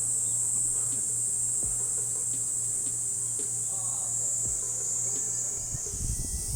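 Summer insects keep up a steady, high-pitched drone, with a low steady hum beneath it. A few soft low thumps come in near the end.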